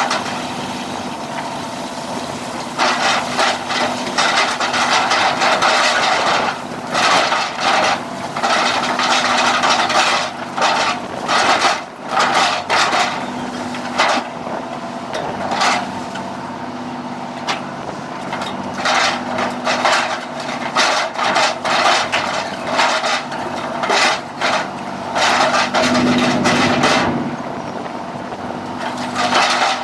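Fishing boat's engine running with a steady low hum, under irregular bursts of knocking, rubbing and scraping on deck.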